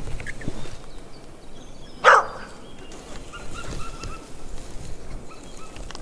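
A dog gives a single short bark about two seconds in, over quiet woodland background with faint bird chirps.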